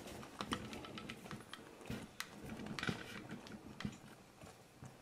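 Faint, irregular light clicks and taps, several a second at times, of small things being handled in a kitchen.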